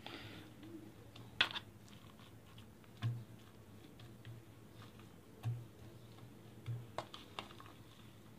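A spoon clicking and scraping against a plastic container and plate while spooning out radish filling and spreading it on dough: a few light, scattered clicks, the sharpest about one and a half seconds in, over a faint low hum.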